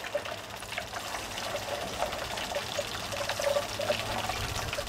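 Used motor oil running from a waste-oil distiller's outlet pipe into a stainless steel can, a steady trickling pour with small crackling ticks. The still is priming: the good used oil it was filled with is being pushed out ahead of the bitumen.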